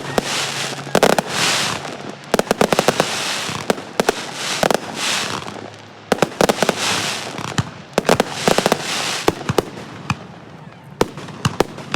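Fireworks going off: dense clusters of sharp cracks and bangs, with hissing crackle swelling between them, thinning out near the end.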